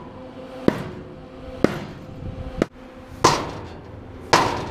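Hammer blows on steel hull plating: five sharp strikes about a second apart, the last two louder with a longer ringing tail.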